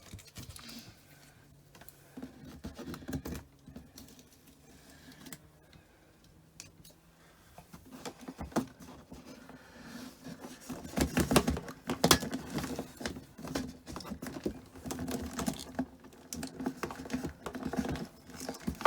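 Small clicks, taps and rustles of hands handling a USB socket and its wiring: the plastic socket body, the cable and the crimped terminals. Sparse at first, then denser and louder from about halfway through.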